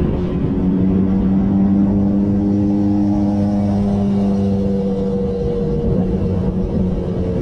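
Motorbike engine running at a steady pitch over a low rumble of road noise, its tone holding and then fading out near the end.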